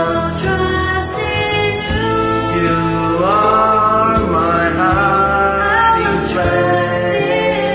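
A man and a woman singing a slow Christian worship song as a duet, with long held and gliding notes over instrumental backing.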